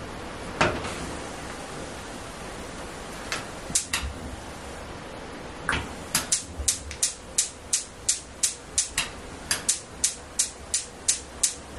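Gas oven's spark igniter clicking at a steady rate of about three clicks a second, starting about six seconds in, as the burner is being lit. Before that, a few scattered knocks and clicks from the control knob and oven front.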